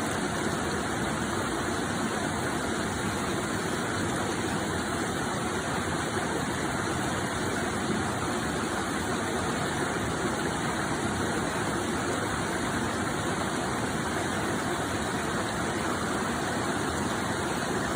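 Stream water flowing, a steady even rushing noise.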